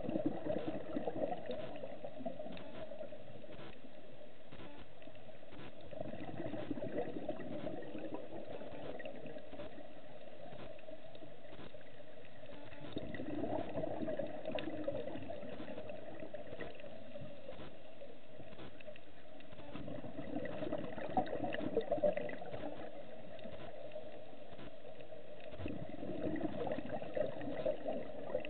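Scuba regulator exhaust bubbles heard underwater, coming in bubbling bursts about every six to seven seconds as a diver breathes out, over a steady hiss.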